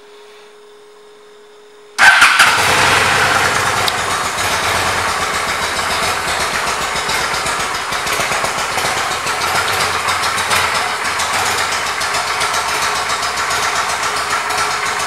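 A 2007 Honda Shadow Aero's V-twin engine starts about two seconds in, loudest as it catches, then settles into a steady idle. Before it starts there is only a faint steady hum.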